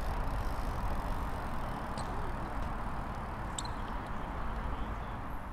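Outdoor city-park ambience: a steady low rumble and hiss, with two brief, faint high chirps about two seconds and three and a half seconds in.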